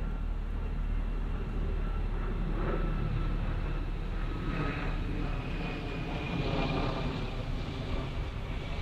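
Steady low engine rumble of vehicles with faint high whining tones; a hiss builds from about halfway through and swells near the end, as of an engine passing.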